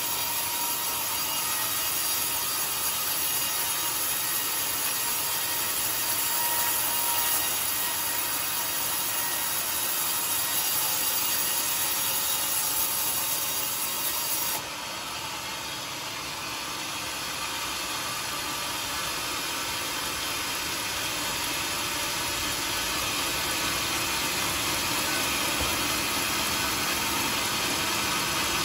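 Band sawmill running, its blade sawing through a coconut-wood log with a steady, dense hiss of cutting. About halfway through the level drops suddenly, then slowly builds back up as the machine keeps running.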